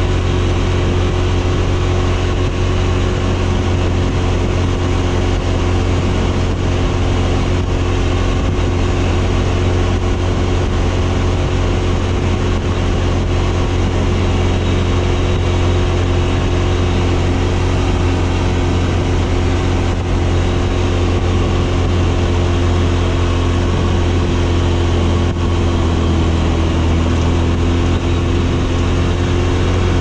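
Off-road buggy engine running at a steady, constant pitch under way, dipping slightly in pitch near the end.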